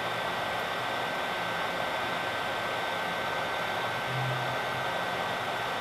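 Hot air rework station blowing a steady stream of hot air from its nozzle, with a thin steady whine over the rush, reflowing solder paste under a surface-mount capacitor.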